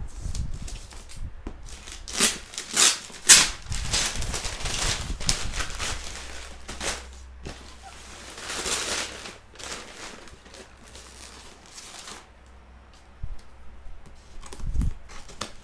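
Packaging being handled: plastic and cardboard crinkling and rustling in irregular bursts, with a few sharp crackles and scrapes, busiest in the first two-thirds and quieter near the end.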